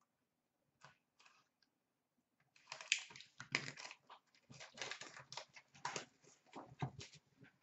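Plastic wrapping crinkling and tearing as a sealed hockey card box is unwrapped: a few faint ticks, then from about two and a half seconds in a run of quick, irregular crackles.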